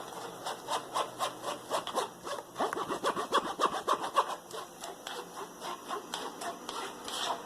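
A small spoon scraping and pressing a thick blended pulp through a kitchen strainer, in a run of quick, repeated strokes that are busiest in the middle.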